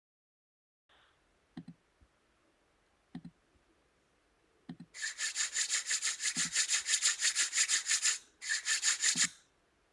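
A few soft clicks, then a fast, even scratchy rubbing of about six strokes a second that breaks off briefly and starts again.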